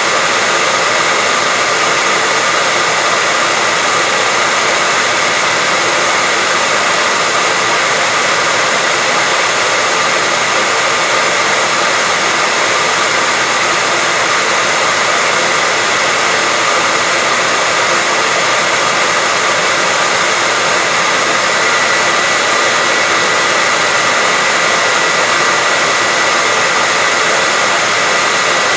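Hair dryer running continuously: an even rush of blown air with a steady high whine, unchanging throughout.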